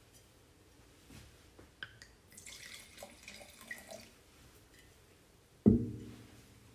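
White wine poured from a glass bottle into a stemmed wine glass, a soft splashing that lasts about a second and a half. Near the end the bottle is set down on the table with a single loud thud.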